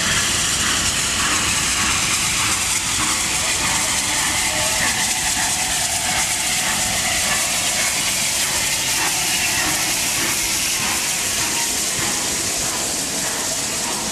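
Bulleid Battle of Britain class steam locomotive 34067 'Tangmere' hissing steam as it rolls slowly in and passes close by; a loud, steady hiss.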